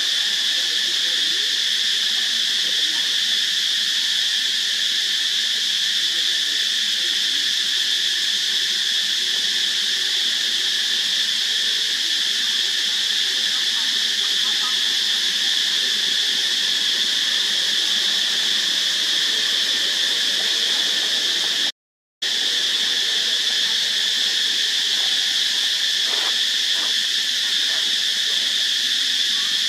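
Steady, high-pitched drone of an insect chorus, unbroken except for a brief dropout about two-thirds of the way through.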